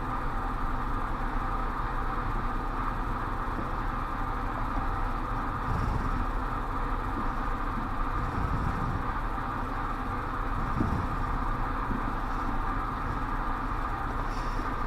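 Steady machine-like background hum with a few faint, soft low knocks.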